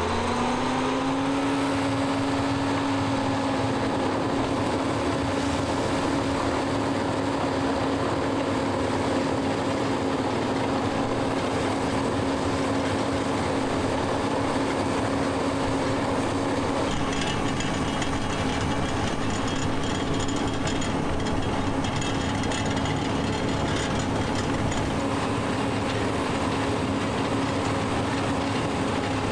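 Diesel engine of a drainage-tile digging machine that revs up just at the start, then runs steadily at high throttle under digging load.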